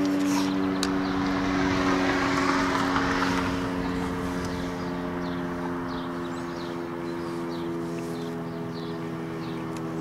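RSH-10 "Thunderbeam" outdoor warning siren sounding its steady Alert signal, a held chord of several pitches, easing off somewhat about four seconds in. In the first few seconds the noise of a passing car swells and fades under it.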